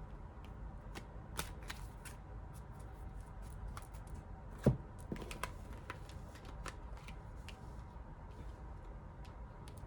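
A deck of tarot cards being shuffled by hand: scattered papery flicks and taps, with one louder thump about halfway through.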